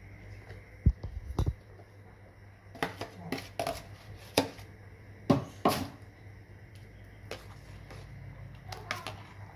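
A metal ladle clinking and knocking against an aluminium cooking pot about ten times at irregular intervals while coconut milk with sago pearls is stirred.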